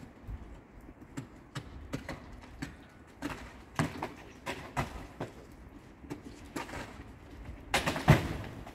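Irregular knocks of a long-handled tool striking packed snow and ice on a roof edge, a blow every second or so, with the loudest strikes near the end.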